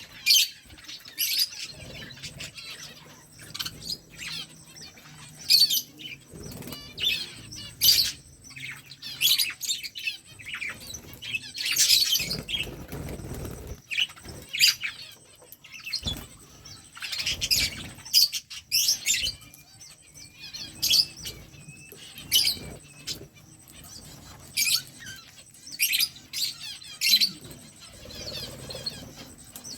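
Budgerigars chirping and chattering to each other: a rapid, irregular stream of short, high chirps and warbles.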